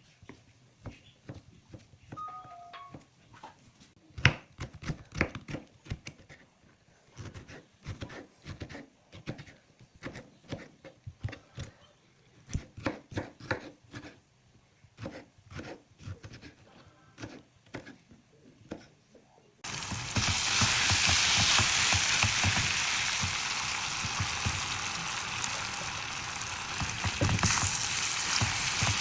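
Kitchen handling sounds: scattered knocks, taps and clinks of utensils and dishes. About twenty seconds in, a loud steady hiss starts suddenly, food sizzling in a hot frying pan.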